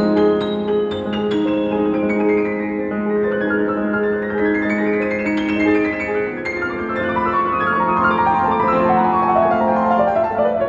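Piano music: a repeating figure over a held low note, with runs of notes climbing higher through the middle and latter part.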